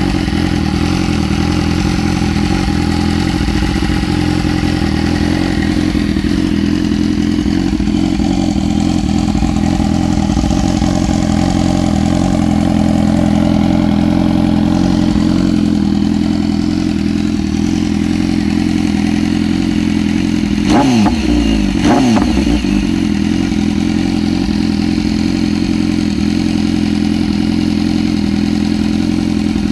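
BMW S 1000 RR inline-four engine breathing through an SC Project slip-on silencer, idling steadily. About two-thirds of the way in come two quick throttle blips, each revving up sharply and falling straight back to idle.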